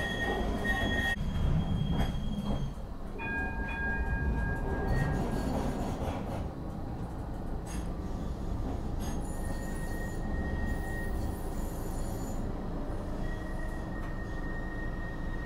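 Modern Bombardier Flexity 2 tram running along street track, heard from inside the passenger cabin: a steady low rumble with thin high whining tones from the wheels and drive that come and go, several at once about three seconds in.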